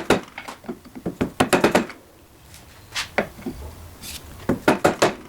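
Hammer knocks on a lathe headstock pulley that is stuck on its shaft with grime, being driven off: an irregular series of sharp knocks, several in quick succession about a second in and again near the end.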